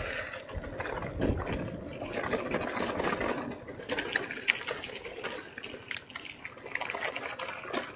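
Mountain bikes being ridden through a shallow river: water splashing and trickling around the wheels, with scattered light clicks throughout.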